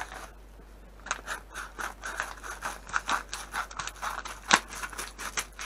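Scissors cutting open a yellow postal mailer: a quick run of snips and crinkling packaging. One sharp click comes about four and a half seconds in.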